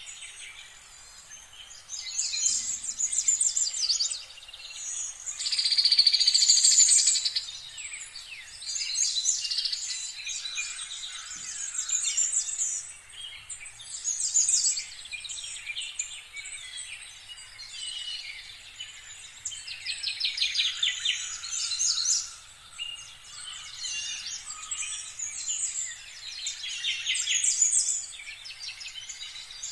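Small songbirds chirping and singing in quick high trills and twitters, coming in bursts of a second or two one after another.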